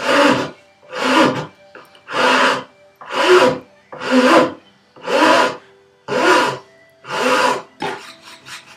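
Half-round bastard file pushed across wood on its flat face, rounding over an edge, in even rasping strokes about once a second. The strokes stop shortly before the end, leaving a few light scrapes.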